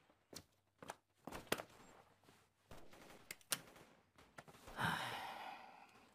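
Faint, scattered gunshots cracking irregularly, a few each second. A louder breathy rustle comes about five seconds in.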